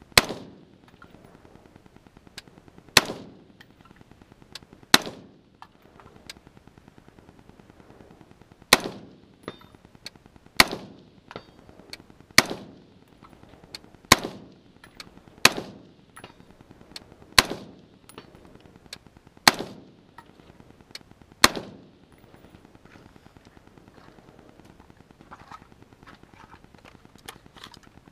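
Smith & Wesson M&P15 AR-15 rifle firing 55-grain V-Max rounds in slow, aimed semi-automatic fire: about eleven sharp shots, two to four seconds apart, each with a short echo. The shooting stops about three-quarters of the way through.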